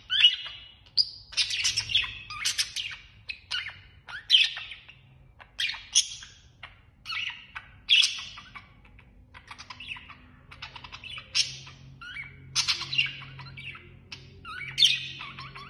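Budgerigars chirping and chattering: a quick, irregular run of short high-pitched calls with brief pauses between them.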